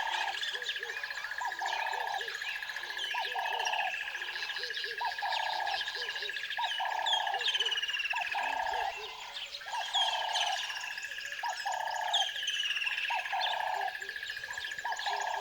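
Birds chirping and calling: a short lower call repeating about every second and a half, mixed with quick falling chirps, over a steady unbroken high-pitched tone.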